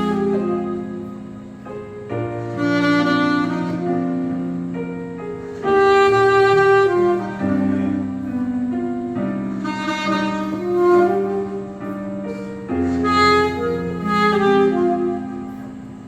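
Saxophone playing a slow melody in long held notes, over an accompaniment with piano and strings.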